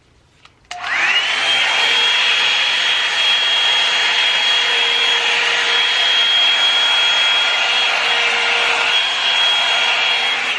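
Revlon One-Step hair dryer brush switched on about a second in: its motor spins up with a quickly rising whine, then runs steadily with a high whine over rushing air, beginning to wind down at the very end.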